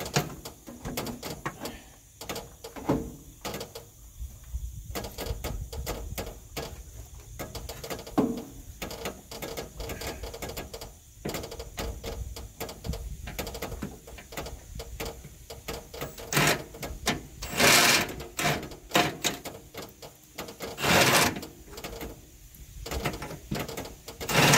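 Hand tools working on metal truck suspension parts: a steady run of clicks and knocks, with a few louder noisy bursts of about half a second near the end.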